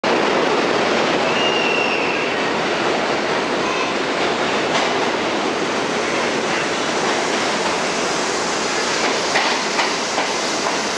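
R68 subway train running into an underground station: a steady, loud rumble of steel wheels on rail as it approaches. A brief high wheel squeal comes about a second and a half in, and a few sharp clanks come near the end as it reaches the platform.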